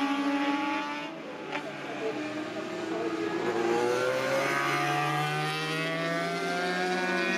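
Several motorcycle engines running and revving at once, their pitches overlapping and gliding up and down. The sound dips about a second in and picks up again a second later.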